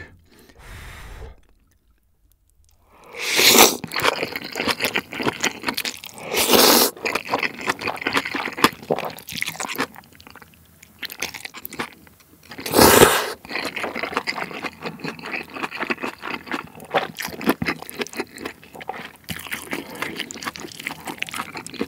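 Close-miked eating of mala xiang guo: noodles and bean sprouts in chili oil slurped in loudly about three and a half, seven and thirteen seconds in, with wet, crunchy chewing between the slurps.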